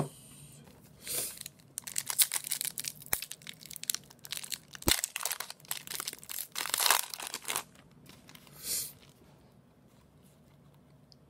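A foil trading-card pack wrapper crinkling and tearing as it is ripped open by hand, in a run of crackly bursts over several seconds. One more short crinkle comes near the end.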